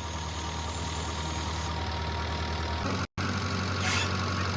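Steady low mechanical hum with a hiss over it, cut off briefly about three seconds in.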